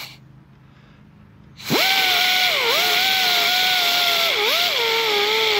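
Small high-speed rotary power tool spinning up with a whine and hiss about a second and a half in, its pitch dipping twice under load, then winding down as it stops near the end.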